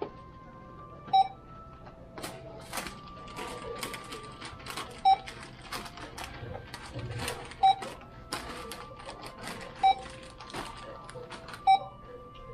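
Supermarket checkout barcode scanner beeping five times, a short single-pitched beep every two seconds or so as groceries are scanned. Rustling and clicking of items being handled runs between the beeps.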